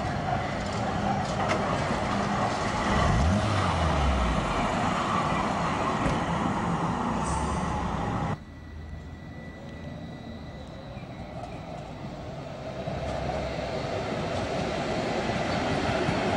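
Traffic noise on a city street, with cars driving past and one vehicle passing close about three seconds in. Partway through, the sound cuts abruptly to a quieter background, which grows louder toward the end as a light-rail tram train approaches.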